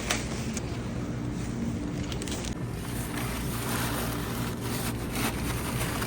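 Steady low hum under an even wash of noise, with a few faint knocks and clatters.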